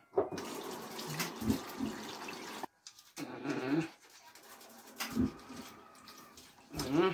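Kitchen tap running into a steel sink while fish is cleaned by hand in a plastic bowl, with rubbing and scraping under the water. The running water cuts off abruptly about two and a half seconds in, leaving quieter handling and splashing.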